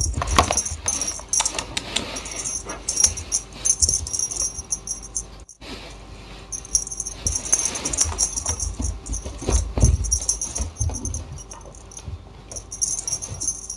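Irregular rustling, scratching and clicking from a kitten playing at close range.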